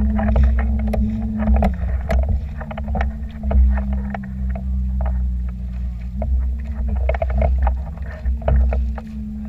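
Small motorboat's engine running steadily while towing; its pitch drops a little about two seconds in and rises again a little past six seconds. Frequent short splashes of water sound over it.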